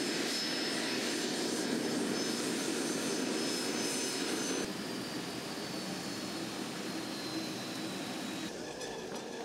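Twin turbofan engines of a business jet taxiing: a steady rushing run with a thin high turbine whine over it. In the second half the whine falls slowly in pitch and the sound is a little quieter.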